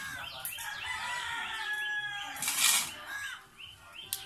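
A rooster crowing once, a long call of about two seconds, over the repeated chirping of small birds. A brief loud rustle follows just after the crow.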